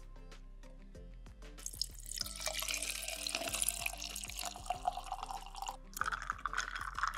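Darjeeling tea poured in a steady stream over ice into a glass mason-jar mug, a rushing splash for about four seconds. It is followed near the end by a shorter, higher trickle as the glass fills. Light background music plays throughout.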